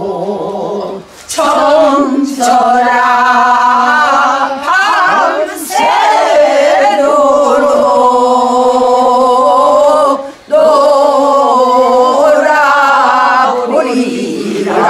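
A group of women singing a Korean folk song together in unison, with long held notes broken by short pauses for breath about a second in, around the middle and near two-thirds through.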